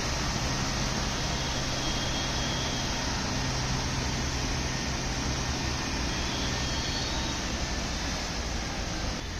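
Steady rushing noise with a low rumble: a bus's engine and the floodwater churned up by its wheels as it wades along a flooded road.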